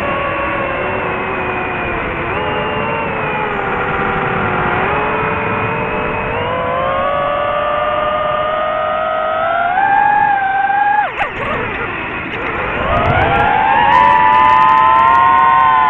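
DJI FPV drone's motors and propellers whining, the pitch rising and falling with the throttle. About eleven seconds in the whine drops sharply and briefly, then climbs steeply to its loudest as the drone punches back out.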